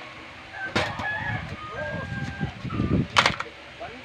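Hard plastic toys clattering and knocking together as they are handled in a pile, once about a second in and again, louder, near the end. In between, a rooster crows with a long drawn-out call.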